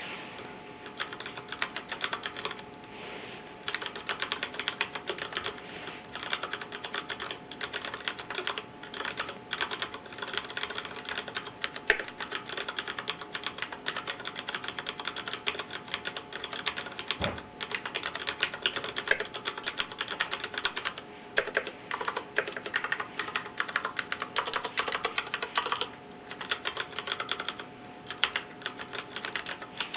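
Continuous typing on a Groove87 mechanical keyboard with brown tactile switches: a rapid stream of key clacks, with short pauses about three seconds in and again near twenty-six seconds. A faint steady hum runs underneath.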